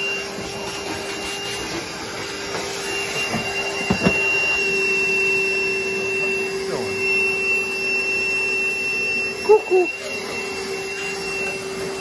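Milwaukee M18 cordless wet/dry vacuum running steadily with a constant whine as its hose cleans dust off a gas boiler. A knock about four seconds in, and two short louder noises near the end.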